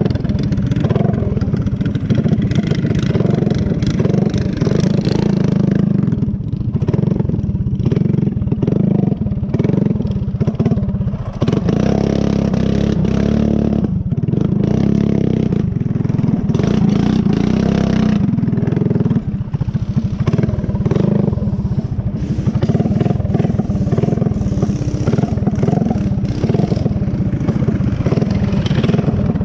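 Small single-cylinder four-stroke off-road engine running hard at close range along a dirt trail, its note shifting up and down with the throttle.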